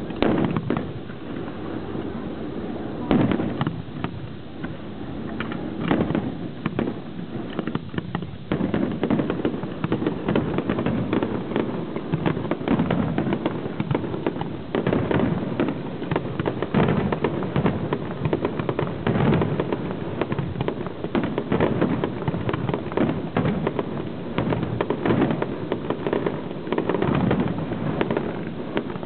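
Fireworks display: aerial shells bursting with bangs and crackling, a few separate loud reports at first, then a dense, rapid string of bangs from about eight seconds in.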